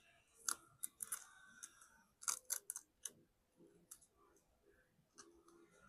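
Razor blade prying and scraping at the shattered back glass of an iPhone 15, giving irregular sharp clicks and crackles as fragments of glass break away, busiest in the first three seconds and sparser after.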